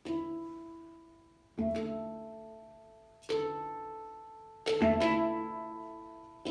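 Hang (steel handpan) played with the hands: single notes struck roughly every second and a half, each ringing out and fading with a bright cluster of overtones, with two quick strikes close together near the end.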